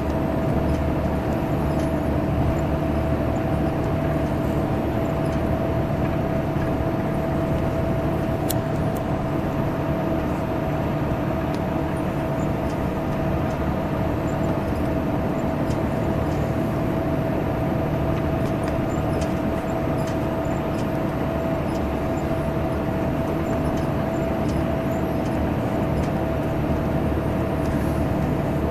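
Salutaris intercity bus number 13500's engine rumbling at a steady cruise on the highway, a constant deep drone with a steady higher tone running through it and no change in pitch.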